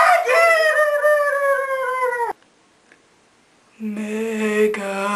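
A girl's long, high-pitched wail, sliding slightly down in pitch, cut off abruptly after about two seconds. After a short silence comes a low, steady moaning hum in a zombie voice.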